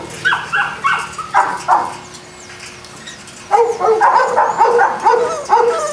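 Boston Terrier barking repeatedly: several short barks in the first two seconds, a pause, then a quicker run of barks from about three and a half seconds in.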